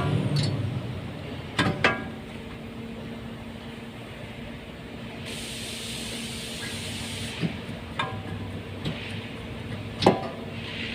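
Workshop sounds during brake reassembly: several sharp metallic clinks of tools and parts, a hiss lasting about two seconds midway, and a steady low hum under it.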